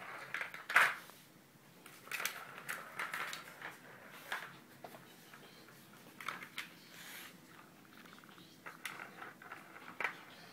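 Irregular plastic clicking, rattling and knocking as kittens paw at a circular plastic ball-track toy, with a sharp knock about a second in and clattery flurries scattered through the rest.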